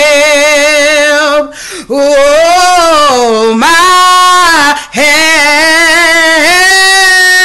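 A woman singing a cappella, drawing out long vowel notes with a wavering vibrato and pitch slides, in three phrases with short breaths between them about a second and a half and five seconds in.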